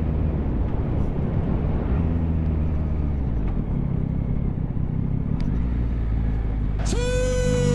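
Motorcycle engine running with wind noise as the bike slows down, the engine note shifting lower with the falling speed. Near the end a loud, steady electronic-sounding tone starts and holds for about a second.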